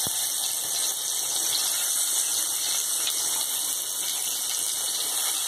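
Hot oil in a kadai sizzling steadily as stuffed eggplants fry in it; a high, even hiss.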